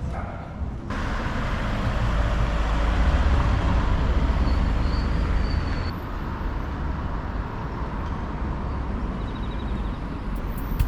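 Street traffic noise: a motor vehicle rumbling past close by, swelling over the first few seconds, then settling to a steadier road rumble after about six seconds.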